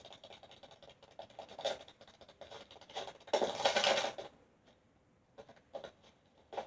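Sparse cartoon foley: faint scratching and light ticks, with a louder rustling scrape lasting about a second, starting about three and a half seconds in, then near silence broken by a couple of small clicks.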